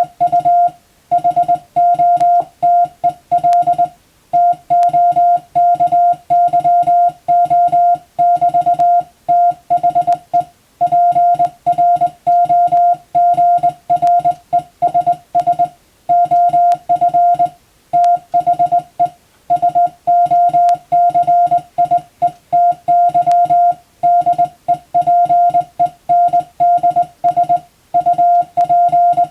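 Morse code as a single steady beep, keyed in quick runs of short and long beeps with brief pauses between letters and words.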